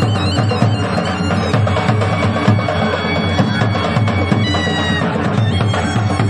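Gujarati folk devotional music played loud through speakers: fast dhol drumming under a high held melody.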